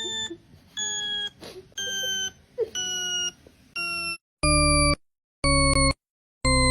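Electronic beep tones repeating about once a second, each about half a second long. The first few step down in pitch over a faint hiss; from about two-thirds of the way in the beeps are louder, with clean silence between them.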